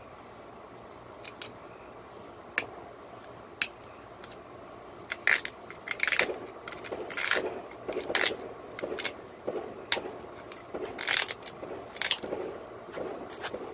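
Pressure flaking cherry quartz with a pointed hand flaker. Two sharp clicks a second apart come first, then a run of short, repeated scraping strokes as the tool's tip works along the stone's edge.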